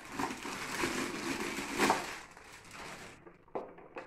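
Clear plastic bag crinkling and rustling as it is pulled off a mixer grinder's motor base, then a few light knocks near the end as the unit is handled.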